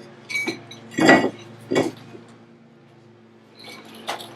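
Brake rotor being fitted back onto the front wheel hub: several ringing metal clinks and knocks in the first two seconds, a pause, then another knock near the end.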